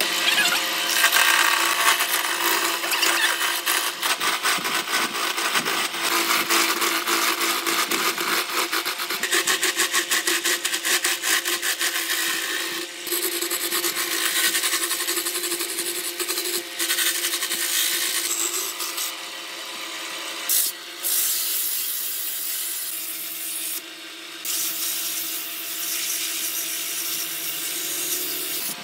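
Wood lathe turning a long wooden spindle, a hand-held turning chisel scraping and cutting into the spinning wood with a steady motor hum underneath. A rapid, even chatter runs for a few seconds in the first half, and the sound breaks off briefly a few times.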